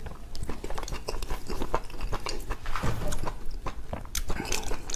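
A person chewing and biting food close to the microphone: many short, irregular mouth clicks and smacks.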